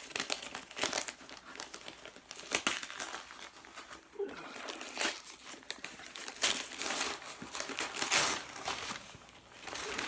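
Packaging wrap being crumpled and torn off a parcel by hand, in irregular crinkling rustles and rips.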